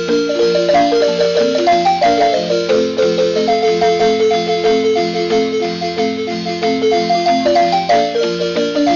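Marimba music: a quick, steady run of struck mallet notes over lower sustained tones.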